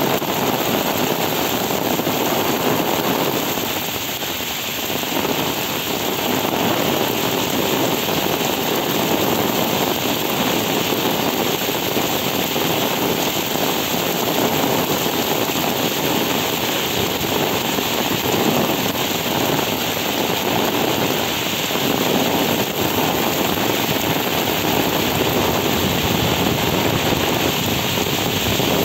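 Heavy rain pouring down and splashing on wet pavement, a loud, dense, steady hiss that eases slightly about four seconds in.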